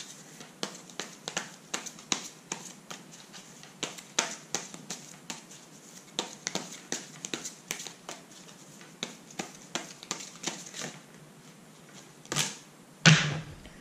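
Tarot cards being shuffled by hand: a run of soft, irregular clicks and slaps, several a second, with two louder knocks near the end.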